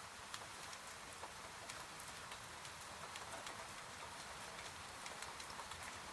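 Rain pattering on a window pane: a steady hiss scattered with many small, sharp drop ticks.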